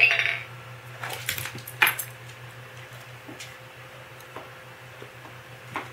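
The end of the recorded 'Cheers!' from a novelty talking button at the very start. Then a few light clicks and taps, mostly between one and two seconds in, as a Pomeranian steps about on a wooden floor, followed by quiet room tone.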